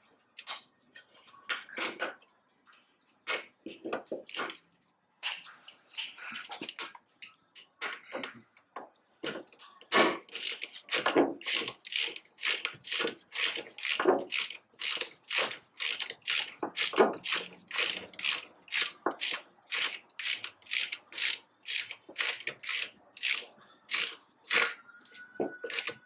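Hand ratchet wrench clicking as brake caliper mounting bolts are run in and tightened: irregular clicks at first, then steady back-and-forth strokes about twice a second from about ten seconds in.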